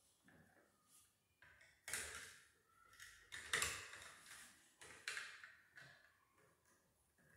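Light clicks and taps from handling a dimmer switch and its wire leads at an electrical box, with three sharper clicks about a second and a half apart.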